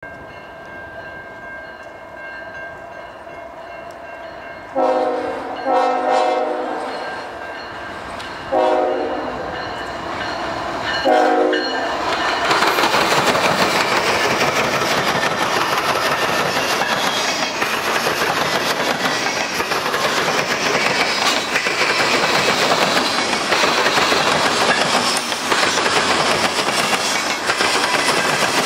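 Canadian National diesel freight locomotive sounding its multi-note air horn in four blasts as it nears a grade crossing. About twelve seconds in, the locomotive passes close by, and loud rumbling follows with the clickety-clack of freight cars rolling past on the rails.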